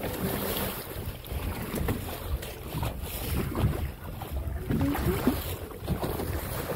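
Wind buffeting the microphone in uneven gusts on an open boat, with water lapping against the hull.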